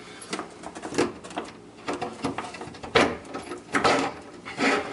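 Dishwasher hoses being pulled through holes in a wooden sink cabinet: plastic hose rubbing and scraping against the wood in irregular strokes, with a couple of sharper knocks, one about three seconds in and one near the end.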